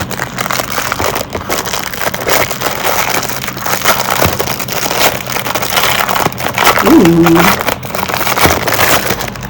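Plastic packaging crinkling and crackling as a tablet keyboard is unwrapped and handled, a dense run of rustles and small clicks.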